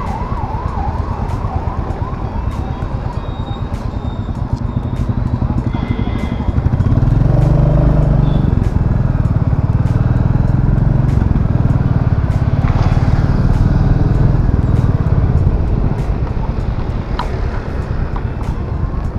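Royal Enfield Classic 350 motorcycle riding through city traffic: a steady low rumble of engine and wind that grows louder about seven seconds in. A siren warbles rapidly for the first couple of seconds, then fades out.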